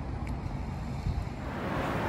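Outdoor traffic rumble with wind buffeting the microphone. About one and a half seconds in it changes abruptly to louder, hissier street noise.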